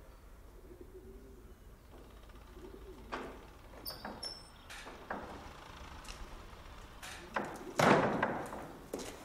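Pigeons cooing softly in a cattle barn, with a few light knocks and squeaks. About eight seconds in, the heavy barn door is opened with a loud, sudden bang that dies away over about a second.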